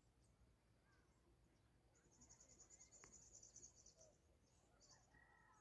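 Faint outdoor field ambience: a high, rapid trill about two seconds in that lasts about a second and a half, with a short repeat later, and a distant rooster starting to crow near the end.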